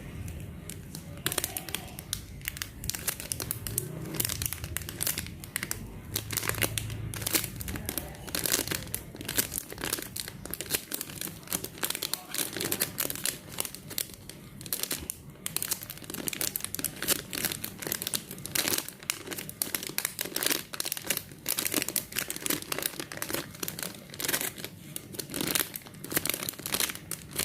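A squishy toy being squeezed over and over, giving a dense, continuous crinkling and crackling.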